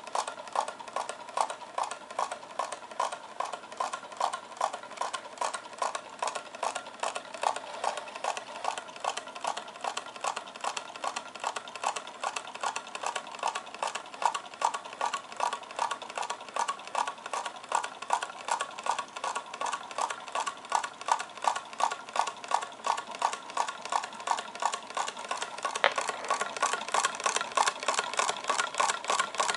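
Homemade Pringles-can low-temperature-differential Stirling engine running, its wire crankshaft and linkage clicking evenly a few times a second, with one sharper click near the end.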